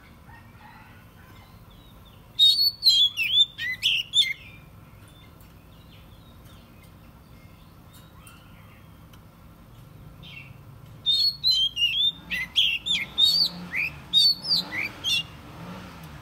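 Oriental magpie-robin singing: two bursts of loud, quick whistled phrases, a short one about two seconds in and a longer one of about four seconds starting about eleven seconds in.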